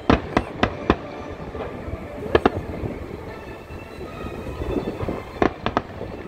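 Aerial firework shells bursting: sharp bangs in clusters, four in quick succession at the start, two about two seconds later, and three more near the end, over a steady background rumble.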